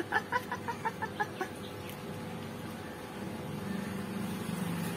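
A hen clucking: a quick run of about eight short clucks in the first second and a half, then it stops.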